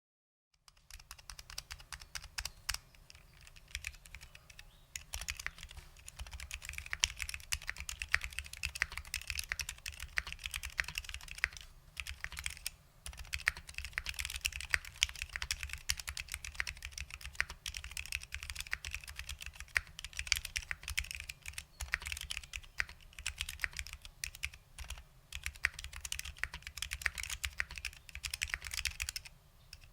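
Fast, continuous typing on a custom 60% mechanical keyboard with lubed SKCL Green Alps switches and ABS doubleshot Alps keycaps, a quick run of key clacks. The typing starts about half a second in and pauses briefly near the middle and just before the end.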